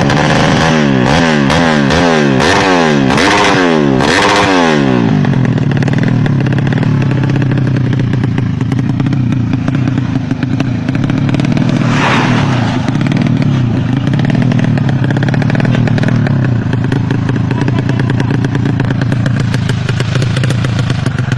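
Drag motorcycle engine revved in quick throttle blips, each rising and falling, about two a second for the first four seconds or so, then held running at a steady speed.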